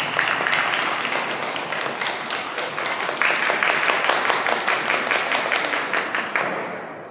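Spectators applauding, a dense patter of many hands clapping at once, dying away near the end.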